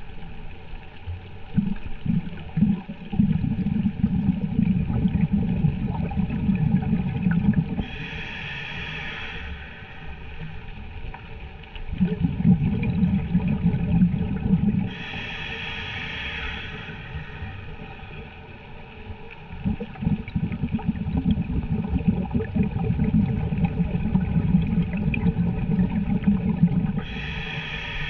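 Scuba diver breathing through a regulator underwater. Each breath is a short hiss of inhalation followed by a long bubbling rumble of exhaled air, repeating about every ten seconds.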